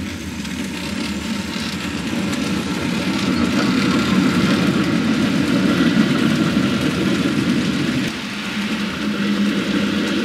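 Model train running past on the layout track: a steady rumble of the locomotive's motor and the wheels rolling over the rails as it hauls a string of coal hoppers. It grows louder as the locomotive passes close and eases a little about eight seconds in.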